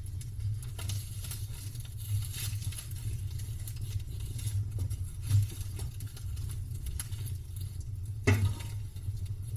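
Campfire crackling: scattered small snaps and pops over a low steady rumble, with one louder pop about eight seconds in.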